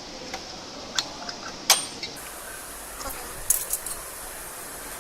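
Scattered sharp clicks and light clinks from the retention clips of a desktop CPU heatsink being unlocked and handled on a removed motherboard. About eight separate clicks, the loudest about a second and a half in.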